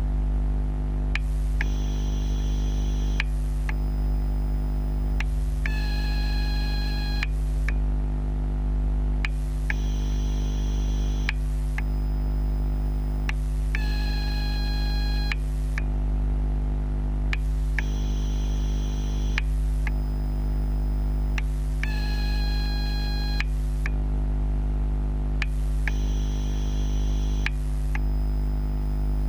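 TGX12 Ni-MH/NiCd battery charger making its strange electrical noise while charging a full row of AA cells, picked up by contact microphones: a steady low hum with a high-pitched whine that switches on for about a second and a half every four seconds, and faint clicks about every two seconds.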